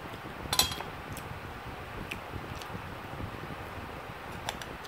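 Close-miked eating sounds from someone picking at a chicken wing: one sharp mouth click about half a second in, then a few faint clicks, with light clicks near the end as a fork touches the plate. A steady fan-like hum runs underneath.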